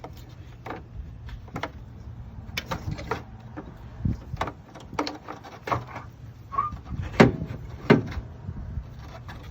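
Irregular metallic clunks and clicks as the old alternator is worked loose and maneuvered out of a car's engine bay, with the two loudest knocks near the end, over a steady low hum.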